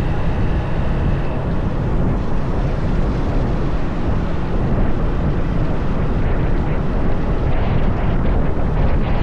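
Wind rushing over the microphone of a moving motorcycle, with the bike's engine and road noise underneath. The wind buffeting gets rougher in the last couple of seconds.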